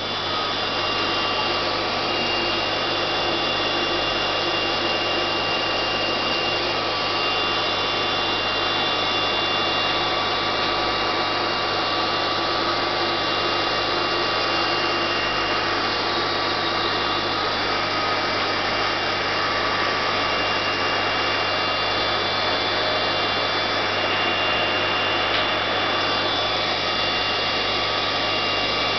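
Aquarium equipment running: a steady low hum under an even hiss, unchanging throughout.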